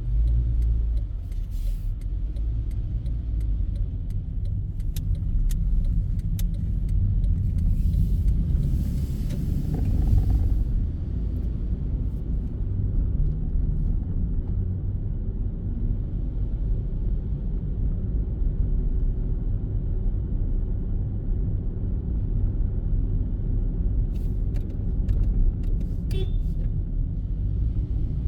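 Steady low rumble of a car driving on city streets, engine and tyre noise heard from inside the car. A brief hiss rises and fades about eight to ten seconds in, and a few light clicks come and go.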